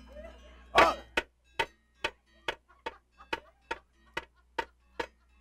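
Sharp knocks in a steady beat, a little over two a second, keeping time for a shadow-puppet play. They follow a louder opening hit with a brief pitched cry about a second in.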